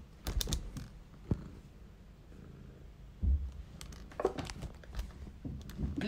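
Domestic cat purring with a low steady rumble, held right against the microphone, its fur rubbing and bumping on it in scattered clicks and one heavy dull thump about three seconds in.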